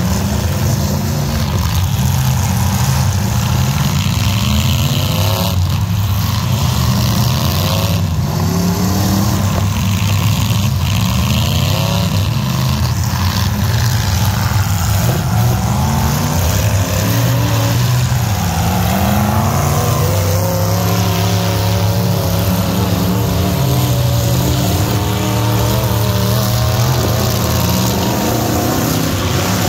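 Engines of several demolition-derby pickup trucks running and revving at once, their pitches rising and falling and overlapping as the trucks accelerate and back off.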